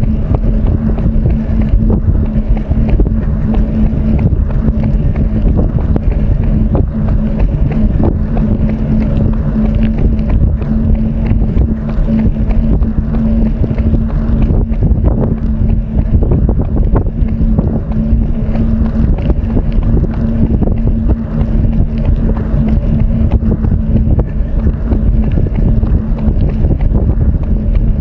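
Heavy wind buffeting on a moving microphone, with a steady low hum underneath.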